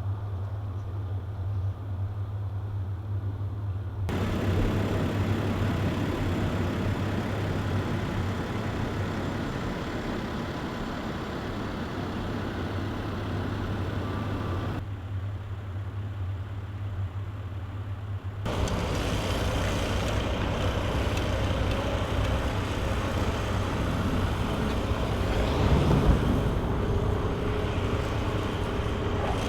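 A vehicle driving: a steady low engine drone with road and tyre noise over it. The sound changes abruptly three times, about four seconds in, around the middle, and a little past the middle.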